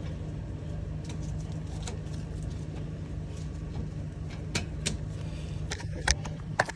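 Light metal clicks and knocks as a brake caliper is fitted back over new pads and rotor, a few spaced clicks in the second half and a louder cluster near the end, over a steady low hum.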